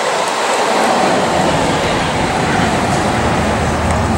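A large vehicle passing close by: a loud, steady rushing noise, with a low hum coming up in the second half.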